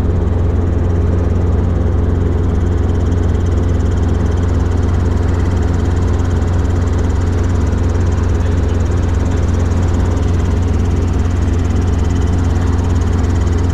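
Robinson R22 Beta II helicopter in flight, its engine and rotors making a steady low drone.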